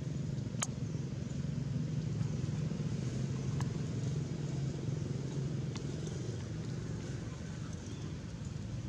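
A steady low engine rumble, with a few faint clicks; it eases off slightly near the end.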